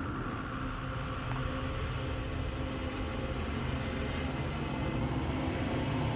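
Low, steady droning rumble with a faint held hum above it, slowly swelling.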